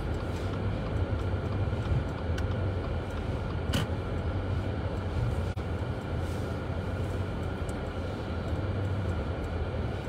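Steady low rumble of a car driving, heard from inside the cabin: engine and tyre noise on a snow-covered road. A single short click sounds just before four seconds in.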